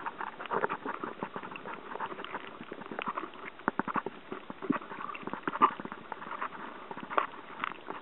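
Underwater sound through a submerged camera: an irregular patter of clicks and crackles over a steady hiss, with a few louder taps scattered through.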